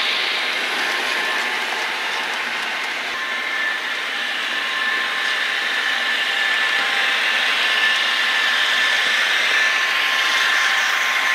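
Model Union Pacific diesel locomotives running on a model railroad: a steady whir of motors and wheels on the rails with a steady whine, dipping slightly a few seconds in and growing louder again as the train comes around the curve toward the listener.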